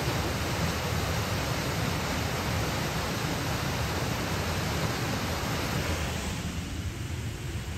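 A river waterfall rushing steadily over a concrete weir, a dense, even roar of falling water that thins somewhat about six seconds in.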